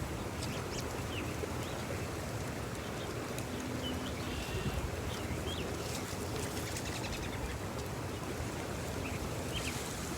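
Steady rush of a small creek's running water, with a few faint, short bird chirps scattered through it.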